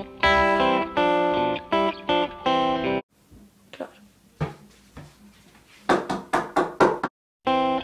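Guitar music for about three seconds, then a quieter stretch ending in a quick series of about six knocks on an interior door, followed by the guitar music starting again at the very end.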